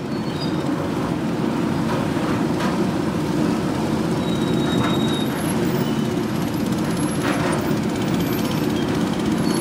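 Small boat engine running at a steady speed, a low even drone that holds at the same level throughout.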